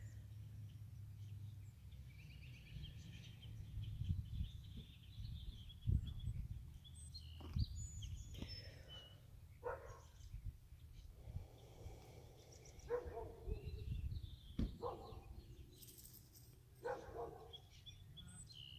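Birds chirping on and off, with a dog making a few short sounds, over a low steady hum.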